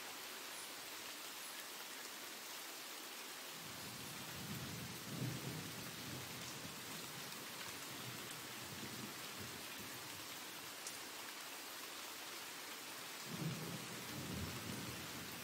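Steady rain falling, an even hiss, with two low rumbles rising out of it, one about four seconds in and one near the end.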